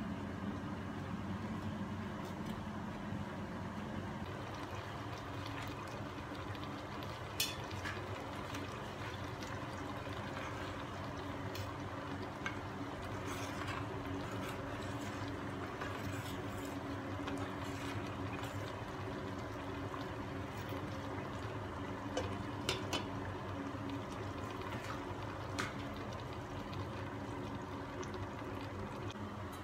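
Steady hiss and hum of a gas burner heating a stainless steel pan of white sauce, with a few sharp clicks of a metal spoon against the pan and its glass lid.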